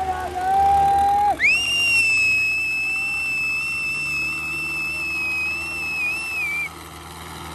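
A shrill whistle: a lower tone for about a second and a half, then a quick rise into a long high note held steady for about five seconds, wavering just before it cuts off.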